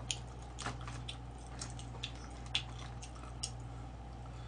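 Eating sounds of sauced chicken being picked at with chopsticks and chewed, with about half a dozen small sharp clicks spread through, over a steady low hum.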